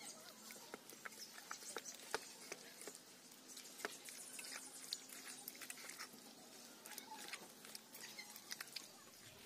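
A hand kneading raw chicken pieces in a wet yogurt-and-spice marinade in a steel bowl: faint, irregular squelches and small clicks.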